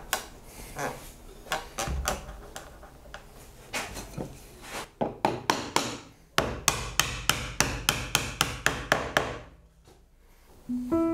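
Red oak leg being tapped down into a mortise to seat its tenon: scattered knocks, then a quick even run of sharp taps at about five a second that stops near the end.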